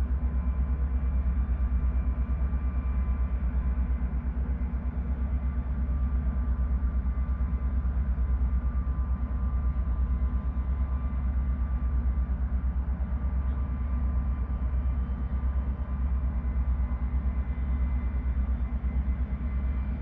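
Steady low rumbling drone of a towboat's diesel engines pushing a large barge up the river, with a few faint steady tones above it.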